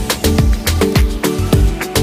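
Background music with a steady, upbeat drum beat and bass line.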